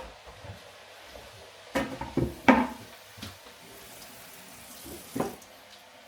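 Kitchen cooking sounds: a few short knocks and clatters of pots and utensils with some water, the loudest about halfway through.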